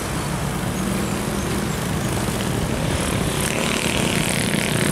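Old Mercedes-Benz truck's diesel engine running steadily as it drives off, with motorcycle engines joining in about three and a half seconds in.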